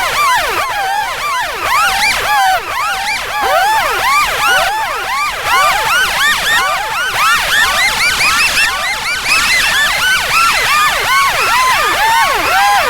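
Police siren in yelp mode: a fast, continuous up-and-down wail, several sweeps a second, loud and unbroken.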